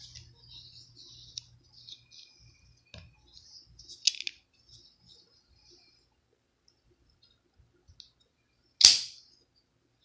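Spring-assisted folding knife being handled, with light scraping and rustling, a sharp click about four seconds in, and a single loud snap near the end as the blade springs open.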